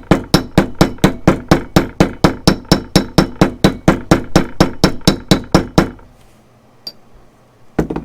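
A mallet tapping a steel domed rivet setter down onto a copper rivet, rapid light even taps about five a second, each with a short metallic ring, peening the rivet's cut end into a smooth dome. The tapping stops about six seconds in, followed by one louder knock near the end.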